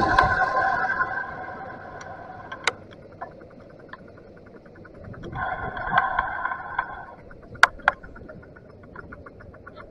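Bafang BBS mid-drive e-bike motor whining in a steady tone under power for about the first second and again for a couple of seconds in the middle. In between, while coasting, the rear freewheel ticks rapidly and evenly. Two sharp knocks come close together a little past halfway.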